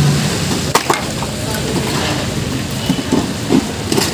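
Wooden boards and metal frames clattering and cracking as a makeshift wooden stall is torn apart by hand, with a sharp knock about a second in and a few more near the end.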